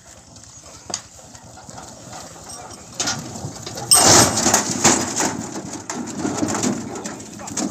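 Bullock cart loaded with granite stones rolling past close by: the cart rattling and clattering, with the two bulls' hoof steps. It is quiet at first, then grows loud from about three seconds in as the cart comes alongside.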